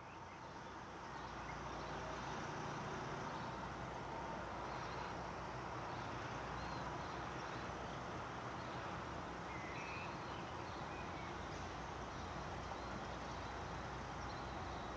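Faint, steady low rumble of diesel locomotives hauling a loaded grain train some distance off, with a few bird chirps over it.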